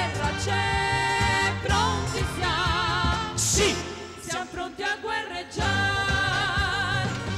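Women's voices singing a gospel song with vibrato over a band with bass and a drum kit; a cymbal crash about halfway.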